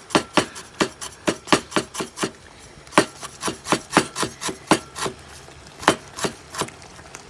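Chef's knife finely slicing kaffir lime leaves on a wooden cutting board: a quick, regular run of knife strokes, about four a second.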